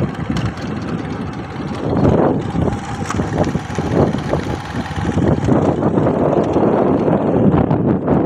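Engine of the vehicle carrying the camera running as it drives along a rough dirt farm track, with wind rushing over the microphone. It grows louder about two seconds in.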